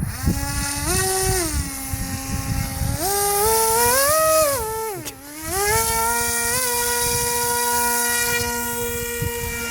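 Grim Reaper XL RC plane's brushless electric motor and propeller whining under power, the pitch stepping up and down in stages with the throttle. The whine drops away briefly about five seconds in, then comes back up and holds a steady pitch.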